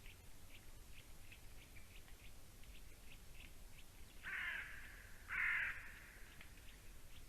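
Two harsh caws from a crow, each about half a second long and about a second apart, a little past the middle. Throughout, faint short high chirps repeat at irregular intervals.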